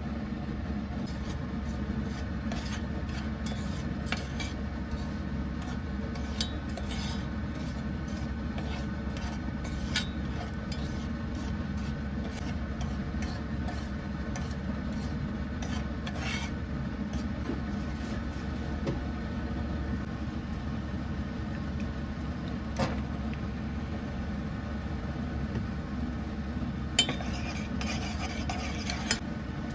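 A metal spoon stirring and scraping around the bottom of an enamel saucepan, mixing a dark sauce, with intermittent taps and scrapes and a louder tap about two-thirds through, then faster scraping near the end. A steady low hum runs underneath.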